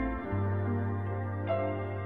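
Background music: a slow, soft new-age piece of sustained notes, with the bass changing just after the start and a new note coming in about a second and a half in.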